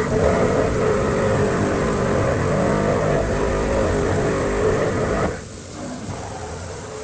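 CNC milling machine cutting a steel block: a steady pitched whine over dense cutting noise, which drops to a quieter, lighter sound about five seconds in.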